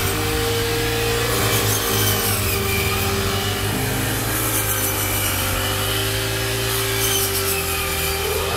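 Four-stroke engine of a walk-behind self-propelled paddy reaper running steadily, with a dry mechanical rasping over it.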